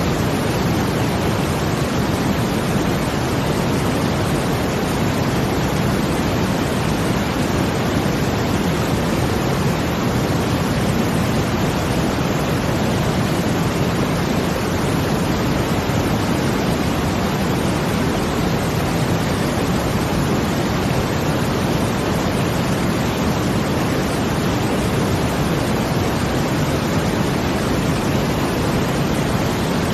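Steady brown noise blended with a water sound: an even, low rushing hiss that holds level without swelling or breaking.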